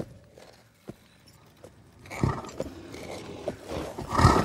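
Heavy, slow hoofbeats of a horse stepping close, as film sound. Nearly quiet for the first two seconds, then a low thud about two seconds in and a louder one near the end.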